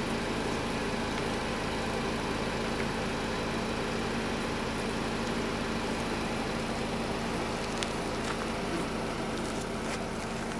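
Vehicle engine idling steadily, a low even hum, with a couple of faint clicks near the end.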